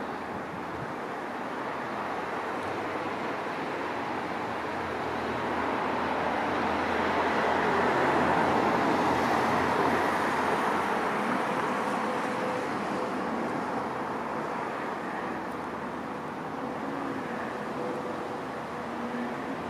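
An aircraft's engines passing, a rushing noise that swells slowly to its loudest about halfway through and then gradually fades.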